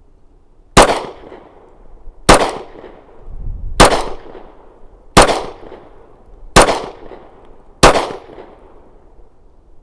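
Six shots from a Glock 36 subcompact .45 ACP pistol, fired singly about a second and a half apart.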